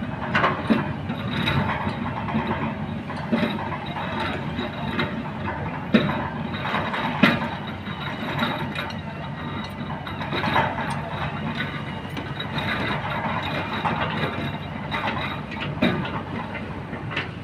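Kobelco hydraulic excavator working in river rock: the engine runs steadily while the steel bucket scrapes and clanks against stones, with sharp knocks scattered throughout, the loudest about six and seven seconds in.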